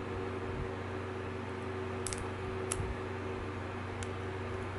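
Steady background hum with a few faint, sharp ticks about two seconds in, near three seconds and near four seconds, as fingers work a flat ribbon cable into a small board connector inside a compact camera.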